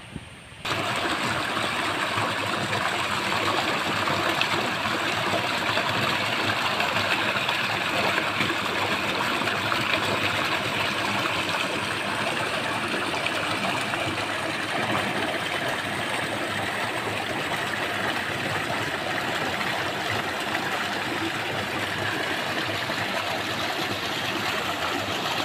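Fast, muddy water rushing and churning through a small weedy channel, a steady loud rush that starts abruptly about a second in. The stream is swollen with rainy-season runoff.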